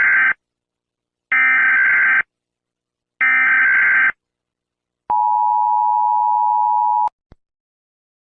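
Emergency alert signal: three short screeching data bursts about a second apart, then a steady two-tone attention signal for about two seconds that cuts off with a small click.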